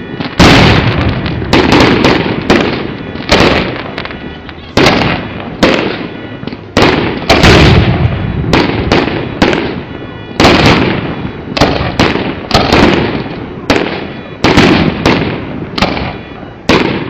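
Aerial fireworks bursting in a rapid barrage, loud booms about one to two a second, each trailing off in an echoing rumble.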